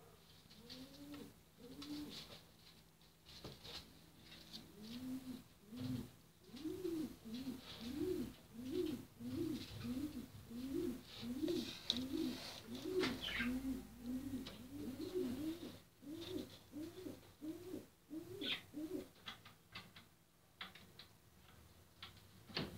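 Racing pigeons cooing: low, rising-and-falling coos, a few at first, then about two a second from around five seconds in until a few seconds before the end.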